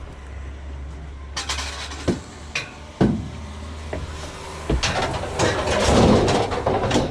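Heavy scrap metal being loaded into a van: a few separate knocks and bangs, then a longer, louder stretch of clattering and scraping near the end, over a low steady hum.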